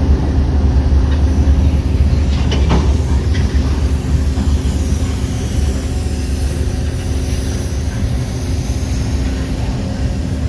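Freight train rolling past with a low rumble and a steady low hum: a trailing diesel locomotive running quietly, riding along without pulling, then loaded lumber flatcars. A few sharp wheel clicks come in the first few seconds.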